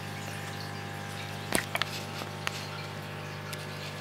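Steady low hum with a few faint clicks about a second and a half in and again a little later.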